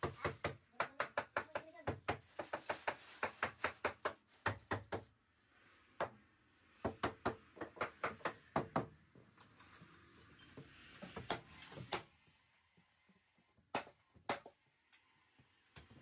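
Fast runs of hammer blows on timber wall framing, about five knocks a second, stopping about five seconds in, starting again for a couple of seconds, then a few single knocks near the end.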